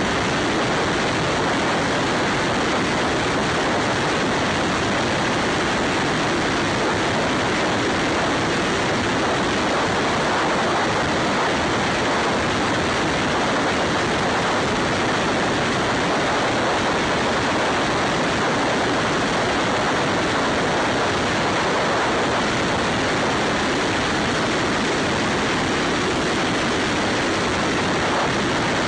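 Steady rush of wind noise over a motorcycle-mounted camera's microphone at highway speed, evenly loud throughout and drowning out any engine sound.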